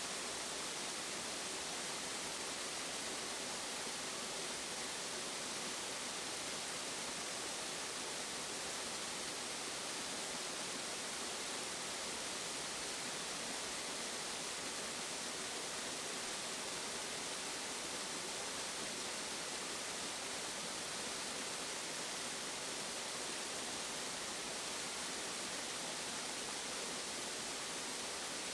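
Waterfall: a steady, hissing rush of falling water that stays even throughout, with little deep rumble.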